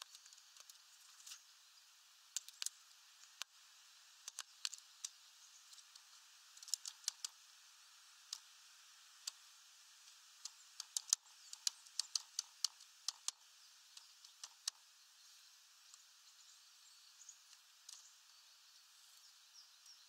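Great spotted woodpecker pecking at seeds on a wooden feeder tray: irregular sharp taps of the bill, coming in a quick flurry about halfway through.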